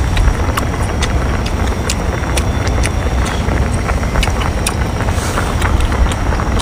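A steady low rumble of wind buffeting the microphone, with frequent sharp clicks and smacks of chewing close to the mic.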